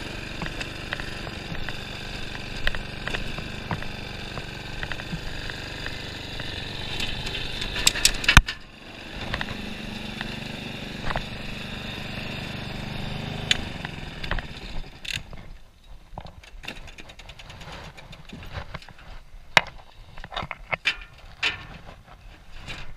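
A small petrol engine runs steadily, with a few sharp knocks and a brief dip about eight seconds in. It runs again for a few more seconds, then stops about fourteen seconds in, leaving scattered clicks and knocks.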